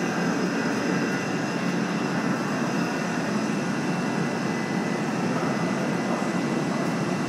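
Steady low mechanical rumble with a few faint, steady high-pitched whines, from the coach bus and vehicle-elevator machinery running.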